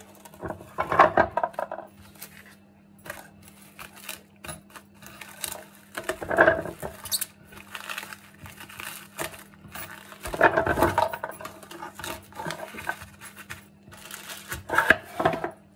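Plastic cling film being pulled off a roll in a dispenser box and pressed around a foam food tray: crinkling and rustling with many small clicks and taps, and four louder bursts of rustle spread through.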